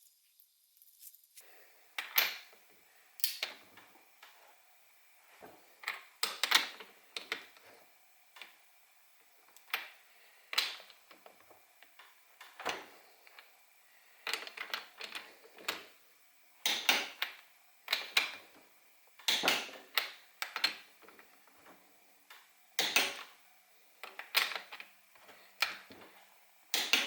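Hand tools and engine parts clicking and knocking together during motorcycle engine assembly: irregular sharp clicks and taps, about one every second or so, some in quick clusters.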